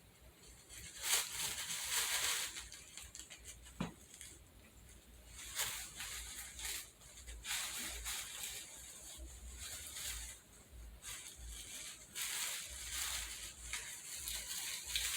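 Intermittent rustling from something being handled, coming in irregular bursts with short pauses, with one sharp click about four seconds in.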